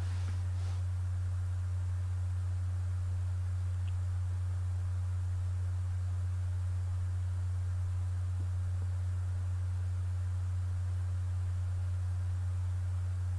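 A loud, steady low hum, one unchanging tone that does not vary, with a couple of faint clicks about half a second in.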